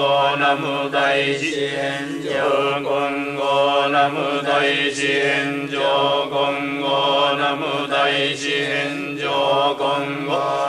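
Shingon Buddhist mantra chanted by a voice in a rapid, continuous recitation held on a nearly steady pitch.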